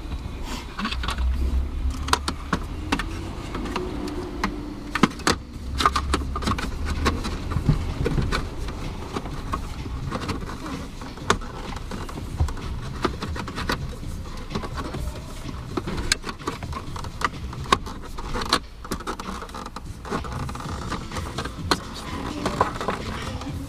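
Irregular clicks and knocks of plastic car dashboard parts being handled and fitted back together, with some low handling rumble in the first half.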